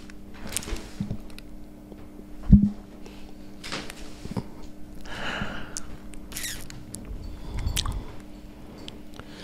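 Handling noise from a handheld desk microphone: rustles and small clicks over a steady low hum, with one dull thump about two and a half seconds in.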